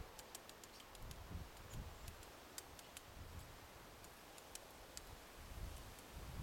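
Faint, irregular sharp ticks, several a second, of a woodpecker tapping at wood.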